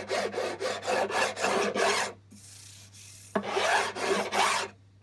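Short fingerboard leveling file rasping back and forth over a bare guitar fingerboard in a run of quick strokes, a pause of about a second, then a few more strokes. It is a light skim of the board's surface to take off burrs and grime around the empty fret slots, not a full leveling.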